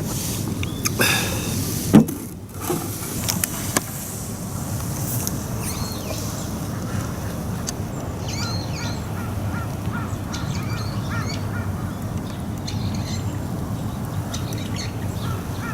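Birds calling over and over with short repeated calls, over a steady low outdoor rumble. A few sharp knocks come in the first two seconds, the loudest about two seconds in.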